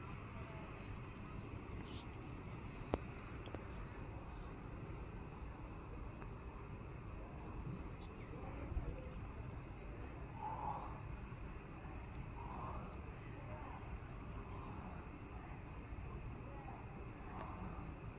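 Insects chirping: a steady high trill runs throughout, with short pulsed chirps repeating over it. A single sharp click comes about three seconds in.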